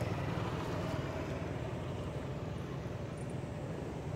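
A steady low rumble, like a motor running, under a constant haze of outdoor noise.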